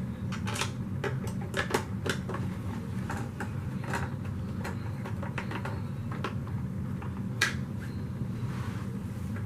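Scattered light clicks and knocks of plastic vacuum parts being handled and fitted together as the Hoover WindTunnel 2 upright is reassembled, with one sharper click about seven and a half seconds in, over a low steady background hum.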